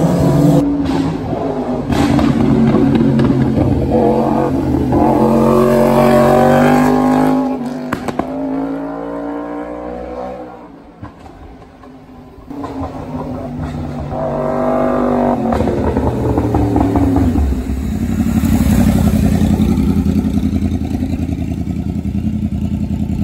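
Several sport motorcycles accelerating out of a bend, their engine notes climbing and falling with each gear. The sound fades about halfway through, then another bike revs up past. Near the end a motorcycle engine runs loud and close with a deep, steady note.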